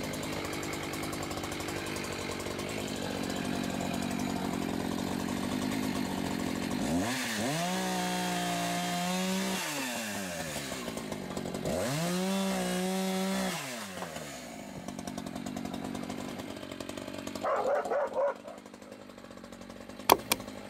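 Echo CS-590 Timber Wolf two-stroke chainsaw running while cutting the tops off wooden fence posts. Twice it revs up and holds high for about two seconds before dropping back, then it settles to a quieter idle. A dog barks near the end.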